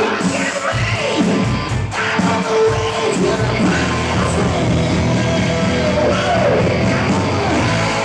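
Live hard-rock band playing loud: electric guitars and a drum kit, with a singer's vocal over them.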